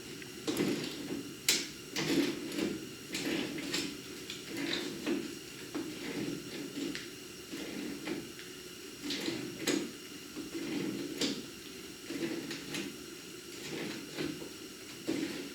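Irregular clicks, knocks and scrapes of hand work on metal, loosening the old bumper's fittings on a pickup truck.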